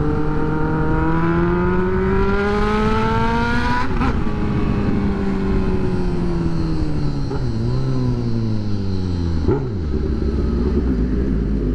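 Motorcycle engine heard from the rider's seat: it climbs in pitch as the bike accelerates for about four seconds, drops sharply at a gear change, then winds down as the bike slows, with brief dips near the middle and toward the end before settling into a low, steady run.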